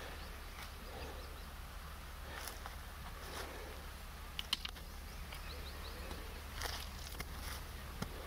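Faint rustling and scattered small clicks of grass and twigs as a person moves and crouches in undergrowth, handling a stick. A few short high chirps sound about halfway through.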